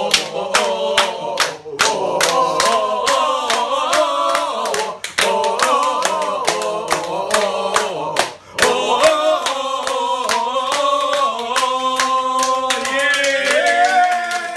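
A small group of men singing a samba cheer song together, with sharp hand claps at about three or four a second. About halfway the clapping thins out and the voices hold longer notes, and one voice slides upward near the end.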